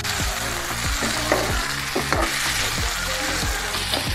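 Onions, tomatoes and cashews sizzling in oil in a non-stick pan, with steady frying hiss. A perforated spatula stirs them, scraping and tapping against the pan several times.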